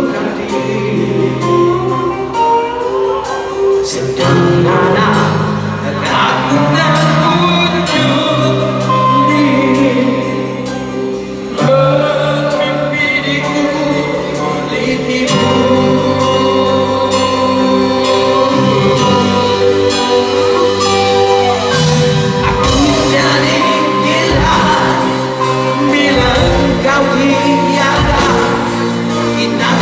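A rock band playing live in a large hall, with a male lead vocal over guitars, bass and drums, recorded from the crowd; the audience may be singing along.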